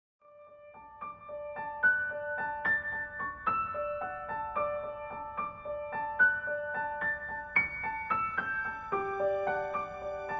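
Background music: a gentle piano melody of evenly paced single notes that fades in and builds.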